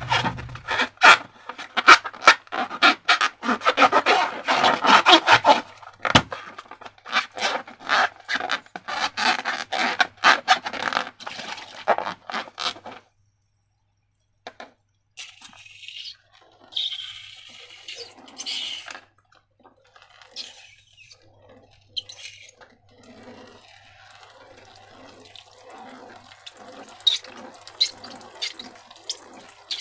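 Slime being squished and worked, with dense wet clicking and crackling for about the first thirteen seconds. After a short pause it gives way to quieter, scattered squishes and brief hissy smears.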